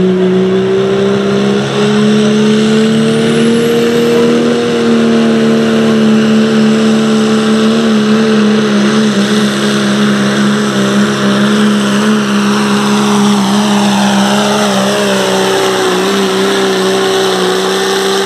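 Pro Stock Diesel Dodge pickup's turbocharged diesel engine at full throttle under heavy load, pulling the sled down the track. It gives a loud, steady drone whose pitch rises a little over the first few seconds and then holds, dropping away right at the end as the pull finishes.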